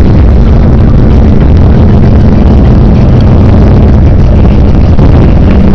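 Car cabin noise while driving: steady engine and road rumble, recorded so loud that it clips and distorts.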